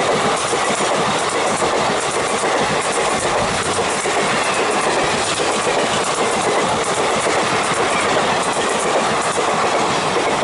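Blue ICF passenger coaches of an express train passing close at high speed. The wheels make a steady loud rush on the rails, with clickety-clack over the rail joints.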